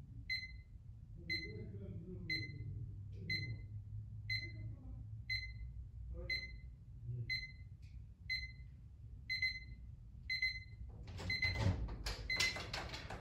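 ThreeH digital alarm clock's alarm going off: a short high electronic beep repeated about once a second. Near the end a burst of rustling noise sounds over the beeps.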